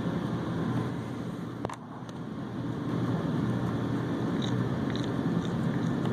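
Steady low mechanical hum, with one sharp click just under two seconds in and a few faint ticks later.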